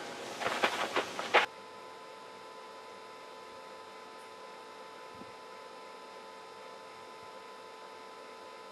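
A few sharp knocks of feet and ball on hard dirt over outdoor noise, the last the loudest, then the sound cuts off suddenly about a second and a half in and only a steady electrical hum remains.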